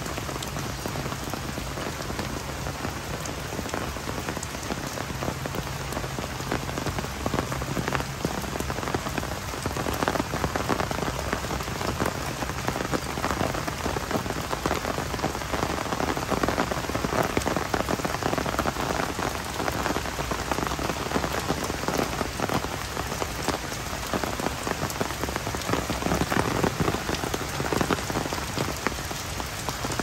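Heavy rain falling steadily, a dense, even patter of drops striking surfaces.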